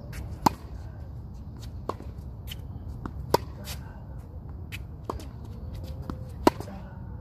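Tennis rally on a hard court: three loud, sharp racket hits on the ball about three seconds apart, with fainter hits from the far end of the court in between. Shoes scuff on the court surface between strokes.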